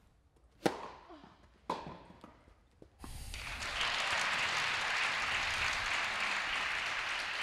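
Tennis ball struck by racquets, two sharp echoing hits about a second apart and a fainter one after, in an indoor hall. About three seconds in, the crowd starts applauding the finished point and keeps on steadily.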